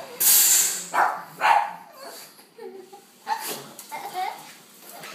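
A SodaStream soda maker gives one short hiss of carbonating gas near the start, and a pug barks several times at it.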